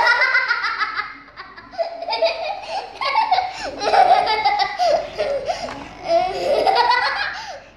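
Young child laughing in several high-pitched bouts, the first starting suddenly with a quick run of laughs.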